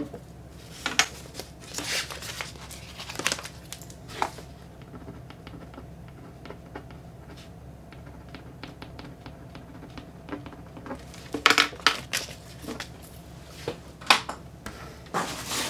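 A pen scratching on paper in many quick short strokes, with light handling noises before it. Near the end comes louder rustling and crinkling as hands rummage in a box.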